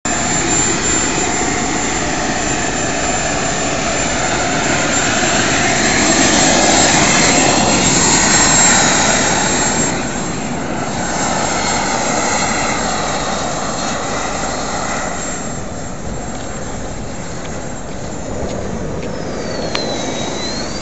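Model turbine jet engine running: a steady rushing hiss with a thin high whine. It swells a few seconds in and eases off about halfway. Near the end a whine dips in pitch and rises again.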